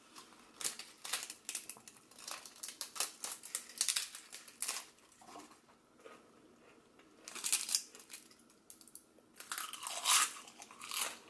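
Crispy bánh xèo (Vietnamese rice-flour crepes) crackling and crunching as fingers break and crumple them, a sign of how crisp they are fried. The crunches come in repeated bursts, with a pause after about five seconds and the loudest crunching near the end.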